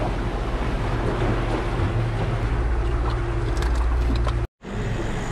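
Boat under way: a steady low engine hum under the rush of the wake and wind. The sound cuts out completely for an instant near the end, then the steady rushing carries on.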